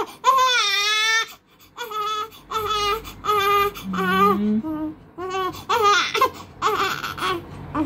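Newborn baby crying in a run of wails, the first about a second long, then several shorter cries with short breaks for breath.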